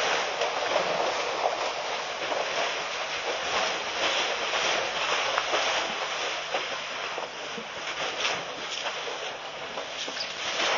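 Outdoor waterhole ambience: a steady rushing hiss of wind and water with many small clicks and splashes through it.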